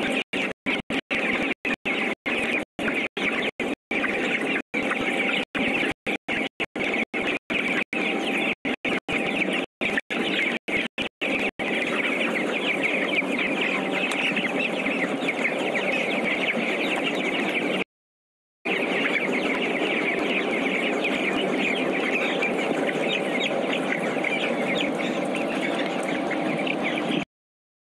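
A large flock of broiler chickens clucking and peeping together in a dense, continuous chatter. The sound cuts in and out rapidly for the first dozen seconds and drops out briefly twice later.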